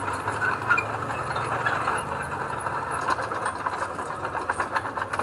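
Heavy machine's diesel engine running steadily, with small clicks and rattles throughout.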